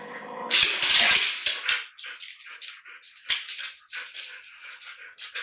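Yellow Labrador puppy whimpering while held and kissed, amid short kissing smacks. A loud rustle of handling comes about half a second in.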